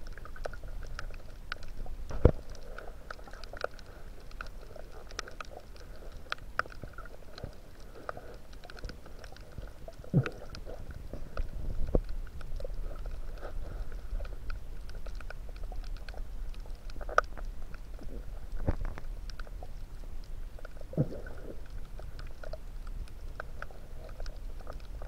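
Underwater ambience: a steady low rumble with many irregular clicks and crackles, and a sharp, louder click about two seconds in.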